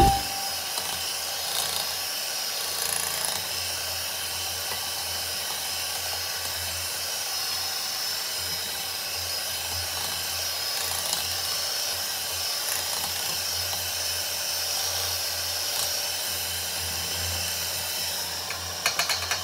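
Electric hand mixer running steadily, its beaters churning flour and liquid into dough in a stainless steel bowl. A few sharp clicks come near the end.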